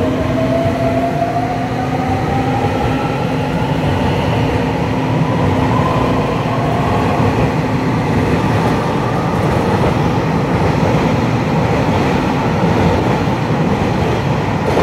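Taiwan Railway EMU3000 twelve-car electric multiple unit pulling out and accelerating past: traction motor whine rising in pitch over a steady rumble of wheels on rail. A steady low hum under it fades out about ten seconds in.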